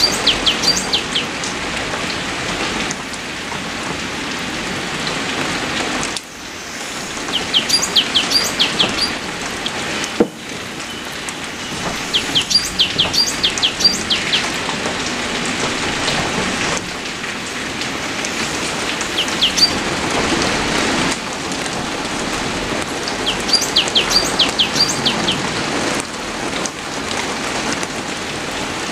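Steady rain falling, with a small bird calling every few seconds in short runs of quick, high, downward chirps. The rain level drops abruptly a couple of times, as at splices in the recording.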